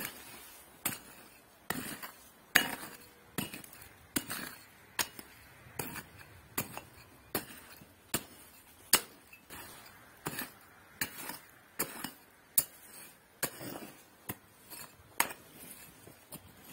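Small hand pick striking into stony, gravelly soil at a steady pace, a little more than one blow a second. Each blow is a sharp chink of the metal head on stones, some followed by a short rattle of loosened dirt and pebbles.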